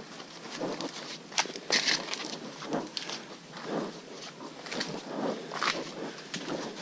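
Footsteps of hikers on a muddy, leaf-covered forest trail: an uneven tread with leaf-litter crunching underfoot and a few sharp snaps.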